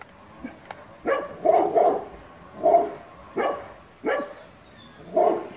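A dog barking repeatedly, about seven short barks at uneven intervals.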